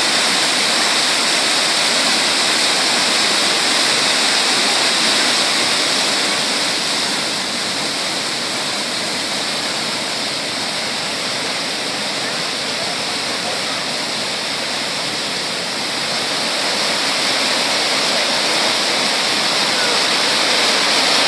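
Small waterfall cascading over rocks into a pool: a steady rush of falling, splashing water. It eases a little for several seconds in the middle and swells again near the end.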